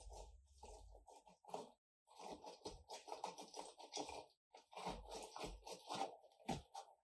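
Irregular scratching, scraping and crunching of lemons being handled and prepared for a turkey marinade, in uneven clusters with a few brief pauses and light low thumps.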